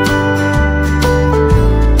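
Background music led by guitar, with a steady bass line.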